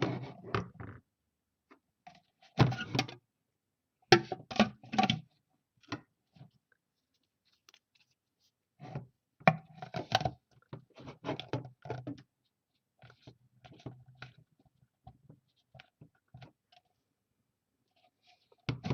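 Plastic water-filter cartridge and pitcher being handled: intermittent bursts of scraping, clicking and light knocking with pauses between.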